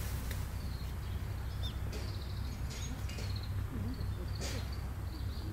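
Outdoor campsite background with a steady low rumble and faint, scattered bird chirps.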